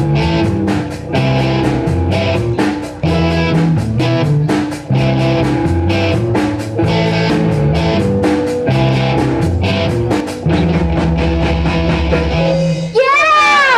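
Live rock band playing an instrumental passage between vocal lines: distorted guitar chords and bass over a steady drum-kit beat. Near the end a high note bends sharply up and back down.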